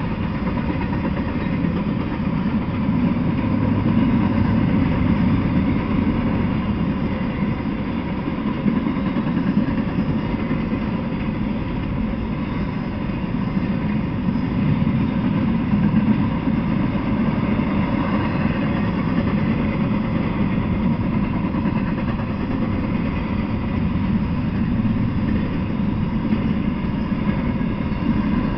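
Intermodal freight train of container well cars rolling past: a steady, unbroken low rumble of the moving cars.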